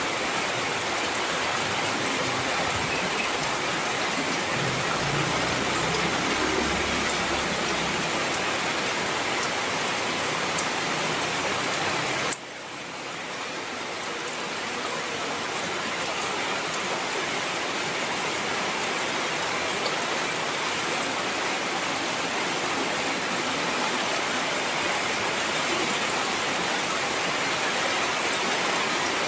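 Heavy rain falling steadily. About twelve seconds in, the sound cuts down suddenly and swells back up over a few seconds.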